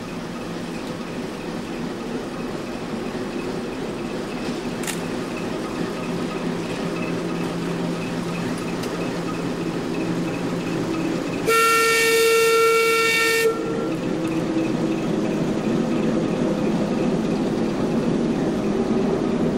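Rake of coaches hauled by a Class 12 diesel shunter rolling slowly past, a steady rumble of engine and wheels that grows gradually louder. About eleven seconds in, a railway whistle gives a loud two-second blast of several tones at once and cuts off sharply.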